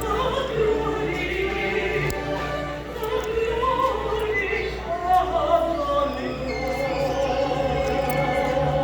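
Classical-style singing of a Christmas piece, likely a choir, with long held notes that move slowly in pitch over a steady low bass underneath.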